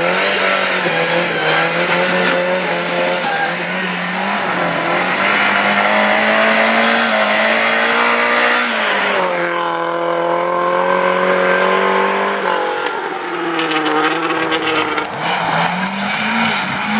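Rally car engine revving hard on a gravel stage, held at high revs and then dropping and climbing in pitch a few times as it goes through the gears.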